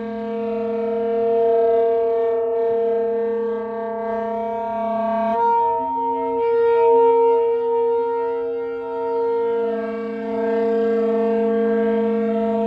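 Several wind instruments, a saxophone among them, holding long drone notes together. About halfway through, the lower notes shift pitch in short steps and a higher note comes in; near the end the steady drone returns.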